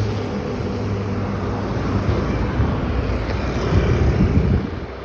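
A motor vehicle passing on the road, its steady low engine hum and road noise dying away near the end.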